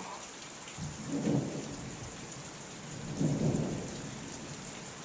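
Steady rain with two rolls of thunder, the first about a second in and the second about three seconds in, each swelling and fading over roughly a second.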